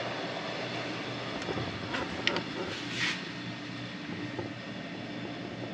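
A steady mechanical drone, with a few light clicks and knocks about two to three seconds in.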